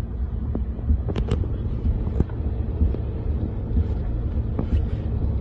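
Car driving in rain, heard from inside the cabin: a steady low rumble of road and engine noise, with irregular sharp ticks of raindrops hitting the windows and roof.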